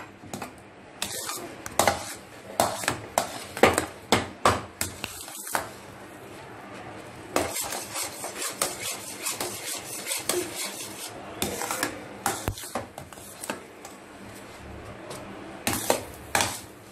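Spoon scraping and knocking against a metal pan while thick, nearly cooked rava kesari is stirred, in a rapid irregular series of strokes that pauses briefly twice.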